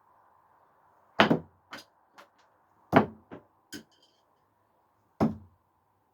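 Thrown screwdrivers hitting a target: three loud thunks, spaced about two seconds apart, the first two each followed by a couple of lighter knocks.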